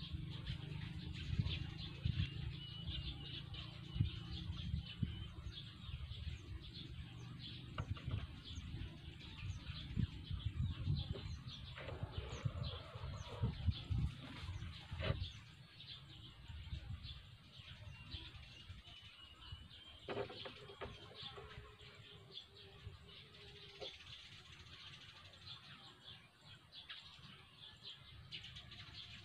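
Birds chirping, with scattered small clicks and taps as plastic PVC pieces are handled and fitted together on a wooden table.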